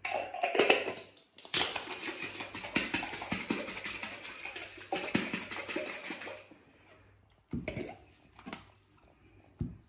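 Hard-boiled egg shaken in a closed glass jar with a little water, rattling and knocking against the glass for about five seconds so that the shell cracks loose for peeling. A few separate knocks follow near the end.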